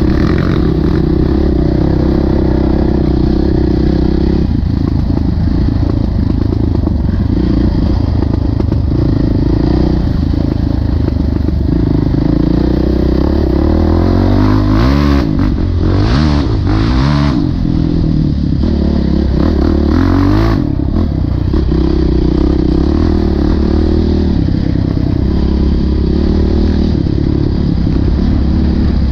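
Honda CRF450X dirt bike's single-cylinder four-stroke engine running under changing throttle on a muddy trail, with the revs swinging up and down in several sharp bursts about halfway through.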